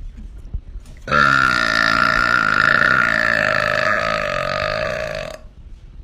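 A woman's long, deliberate burp lasting about four seconds. It starts about a second in, holds a steady, rough pitch, and tapers off near the end.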